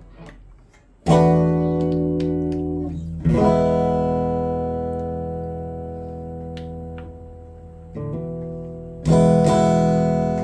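Guitar played through a Boss GT-1 multi-effects preset with a clean, acoustic-like tone. Four chords, each strummed once and left to ring out, start about a second in.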